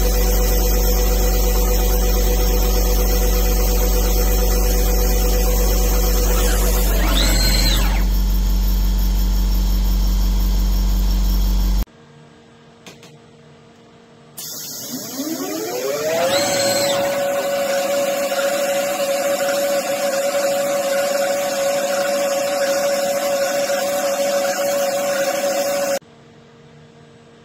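Small CNC lathe turning an aluminium bar: the spindle motor whines steadily over the cutting noise, with a short whine sweeping up and down about seven seconds in. After a brief drop, the spindle ramps up with a rising whine and holds a steady high tone while the tool cuts with oscillating feed rate to break the chips.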